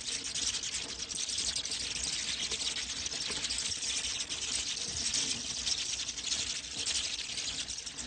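Bats chittering together: a dense, steady high-pitched chatter of many overlapping tiny squeaks and clicks.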